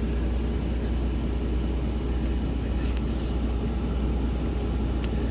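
Steady low rumble of an idling engine. Trading cards give a brief rustle about three seconds in as they are flipped.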